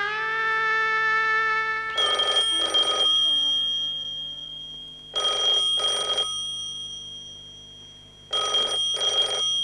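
A telephone bell ringing in double rings: three 'ring-ring' pairs about three seconds apart, each leaving a high ringing tone that dies away between rings. A held music chord fades out at the start.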